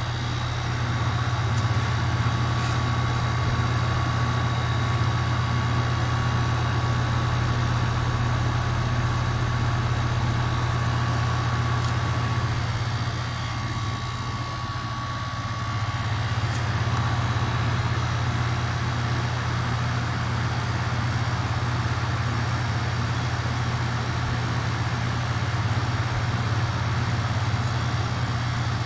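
Goodman 1.5-ton heat pump outdoor unit running in cooling mode: a steady low compressor hum under the rush of the condenser fan, with a faint thin whine above, easing slightly for a few seconds about halfway through.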